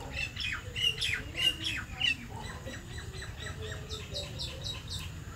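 Birds calling: a dense run of short, repeated high calls in the first two seconds, then a row of four quick, higher notes about four seconds in.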